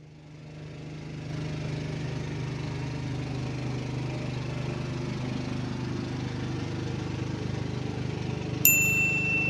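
An engine running steadily with a low, even hum that swells up over the first second or so. Near the end a single sharp, high ding rings out and hangs on.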